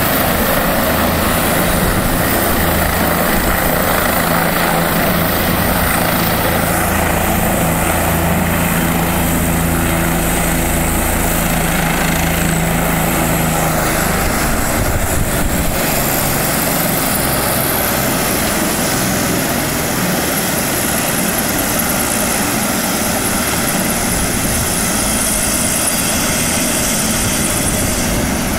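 Light turbine news helicopter hovering low over a grass field and settling in to land: a loud, steady rotor chop and turbine whine, the sound shifting about halfway through as it manoeuvres closer.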